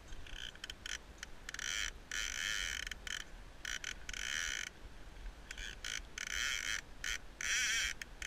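Fly reel's ratchet buzzing in a string of stop-start runs as a hooked salmon pulls line off it, the buzz speeding and slowing with the pull.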